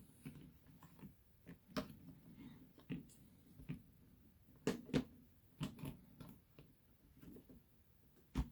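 Faint, scattered clicks and taps of an SD card being handled and pressed into a snug slot of a hard memory card case, with a sharper pair of clicks about five seconds in and another near the end.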